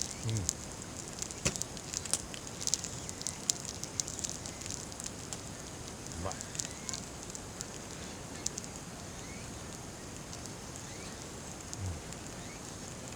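Wood campfire crackling, with many sharp crackles in the first five seconds and fewer afterwards over a steady hiss.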